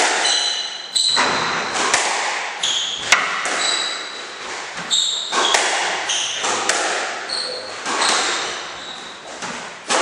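Squash rally: sharp cracks of the ball off the rackets and the walls, a hit every second or so, echoing in the enclosed court, with short squeaks of shoes on the wooden floor between the hits.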